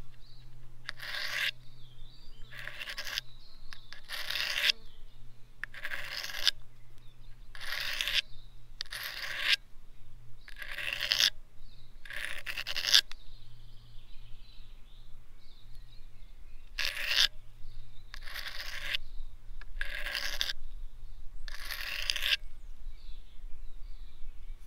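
A knife blade drawn against the metal front end of a survival rifle in about a dozen even scraping strokes, roughly one every second and a half, with a pause of a few seconds midway.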